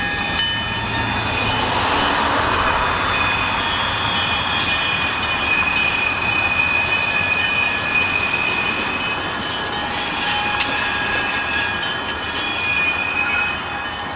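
Freight train rolling slowly through a curve, its steel wheel flanges squealing against the rail in several steady high tones over the rumble of the cars.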